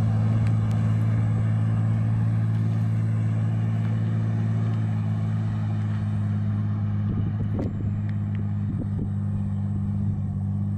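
Heavy logging truck engine running at a steady pitch under load, a low constant drone that grows a little fainter in the second half.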